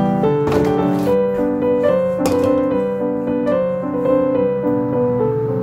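Background piano music, a melody with chords.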